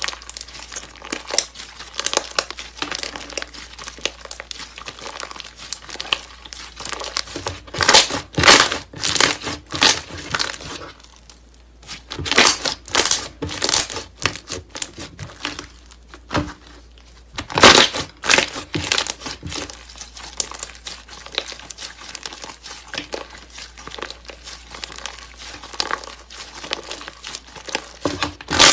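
Hands squeezing, pressing and stretching soft slime, giving a dense crackle of small sticky pops and clicks that comes in louder bursts a few times.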